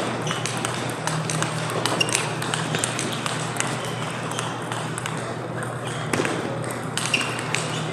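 Table tennis balls clicking off rackets and the table in practice rallies: many sharp, irregular clicks, over a steady low hum.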